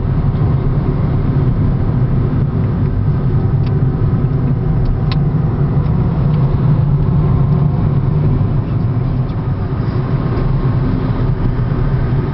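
Mount Etna's active craters giving off a steady, low, unbroken drone: the volcano humming. Two faint clicks sound over it about four and five seconds in.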